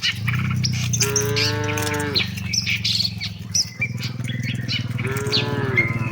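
Cattle mooing twice, each call about a second long, the second falling in pitch at its end. Birds chirp throughout over a steady low hum.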